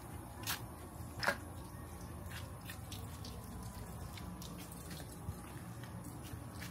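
Quiet night-time outdoor ambience: a low steady hum with a few short soft clicks, the loudest about a second in.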